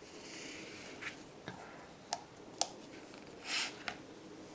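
Quiet room tone with a few small clicks and taps of a hand handling a plastic light-up disc, and a short soft hiss about three and a half seconds in. The disc itself makes no sound.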